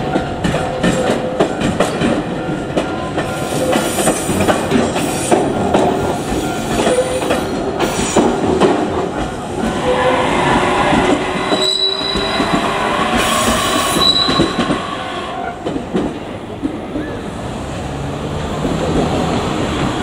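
JR Kyushu 817 series electric multiple unit running past close by, its wheels clicking over rail joints, with brief high-pitched wheel squeals around the middle of the pass.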